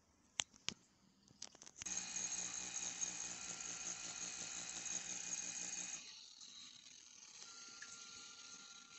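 Donnerberg NM090 shiatsu massager: two clicks near the start, then its motors run with a steady whir and a fast regular pulse as it works in continuous vibration mode. About six seconds in it drops quieter, leaving a thin steady tone.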